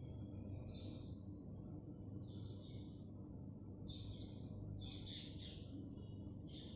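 Drawing strokes scratching on paper: a run of short scratchy strokes, roughly one a second, over a faint steady hum.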